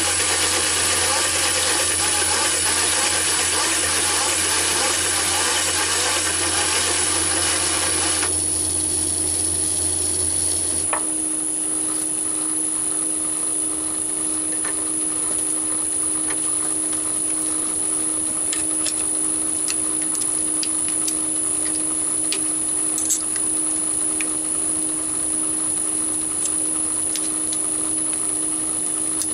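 Myford ML7 lathe running with a boring head cutting into an acetal block, a steady hiss of cutting over the motor's hum. The cutting noise drops away about eight seconds in, and the motor stops with a click a few seconds later. After that come scattered small clicks and taps as the boring head is handled and adjusted with a hex key.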